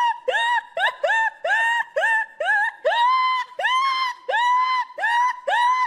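Prolonged, very high-pitched laughter: a fast string of 'ha' syllables, about three a second, each sliding up in pitch and then holding briefly, with a few held longer.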